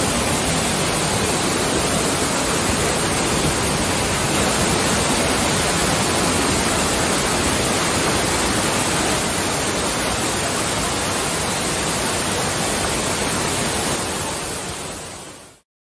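Waterfall pouring over rocks: a loud, steady rush of water that fades out near the end.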